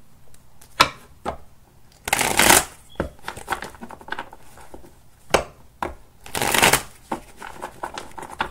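A deck of tarot cards being shuffled by hand: two longer rustling bursts of shuffling about two and six and a half seconds in, with single sharp card taps and snaps between them.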